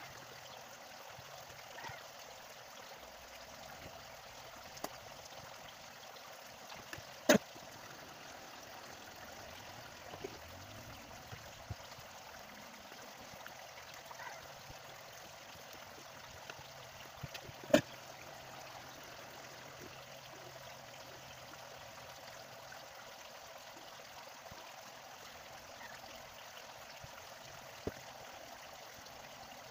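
Steady hiss of background noise with a few sharp clicks and taps as a phone's screen assembly and frame are handled on a repair mat. Two of the clicks are loud, about seven seconds in and again about eighteen seconds in.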